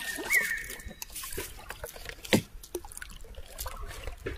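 Water dripping and trickling in a small wooden boat, with scattered light clicks and knocks as things in the bottom of the boat are handled.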